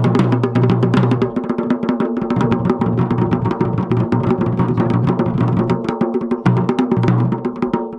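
Garhwali dhol and damau drums played together in a fast, continuous beat, dense strikes with a low steady ringing under them that drops out briefly about a second in and again near the end.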